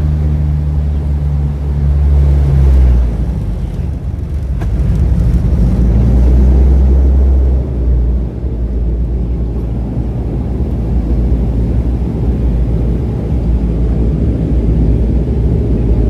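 Dash 8 turboprop's engines and propellers droning through a windy landing, with a heavy low rumble. A steady low propeller hum over the first few seconds gives way to a rougher rumble, which swells for a few seconds in the middle.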